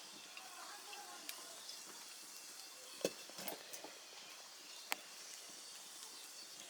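Faint steady hiss with two sharp clicks about two seconds apart, like a utensil knocking against a pot during cooking.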